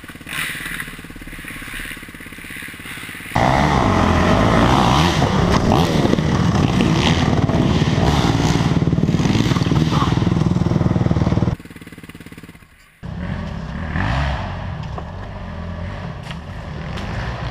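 Dirt bike engines running. About three seconds in the sound jumps to a loud, revving engine whose pitch wavers up and down for some eight seconds, then drops away sharply and comes back at a lower level near the end.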